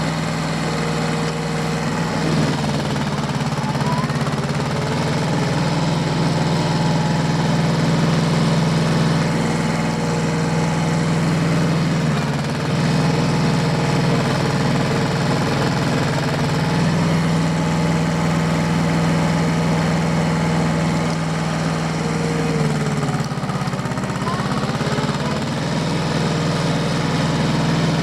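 Diesel tractor engine running steadily, its pitch dipping briefly about three-quarters of the way through.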